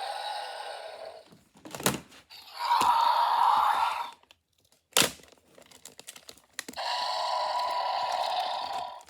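Three long, raspy dinosaur roar sounds in toy-battle play, with two sharp plastic clacks between them.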